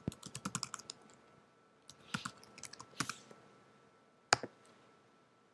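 Keystrokes on a computer keyboard while a username and password are typed in: a quick run of key presses in the first second and another flurry about two to three seconds in, then a single sharper click a little after four seconds.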